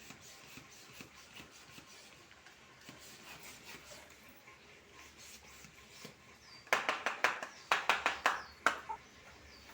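Young chicks peeping softly, with short falling high chirps. About seven seconds in comes a quick run of loud, sharp clicks and taps lasting about two seconds.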